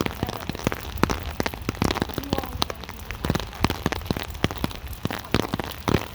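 Rain falling, with irregular sharp taps of drops striking close by, several a second.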